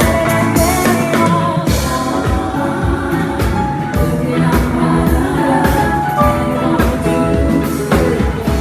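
Live band playing a song, with drum kit hits, sustained keyboard or guitar notes and a singing voice, recorded raw on a phone's microphone.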